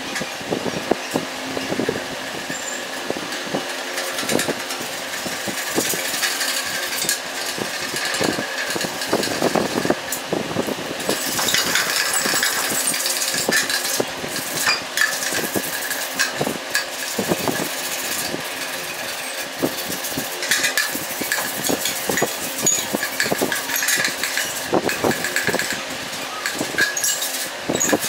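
Metal scraper rasping old paint off a steel motorcycle box by hand, in many short, irregular scratchy strokes. A steady hum runs underneath.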